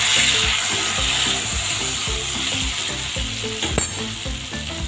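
Diced potatoes sizzling steadily as they fry in hot mustard oil in a kadai, stirred with a spatula. There is one sharp click about three and a half seconds in.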